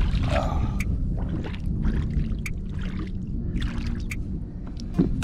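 Water splashing as a redfish is released over the side of a kayak, then small splashes and drips of water against the hull, with short sharp ticks scattered through, over a steady low rumble.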